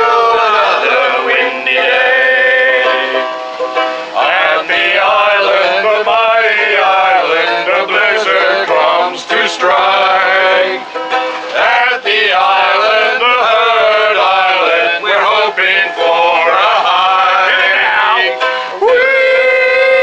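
A song: voices singing with ukulele accompaniment.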